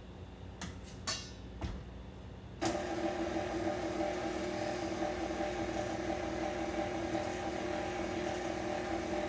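A few light clicks and knocks at the stand mixer, then about two and a half seconds in the tilt-head stand mixer's motor switches on and runs steadily with a constant whine, beating flour into pound cake batter.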